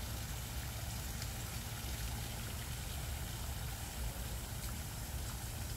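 Steady rushing and splashing of a small waterfall falling into a pond, with a low, even rumble underneath.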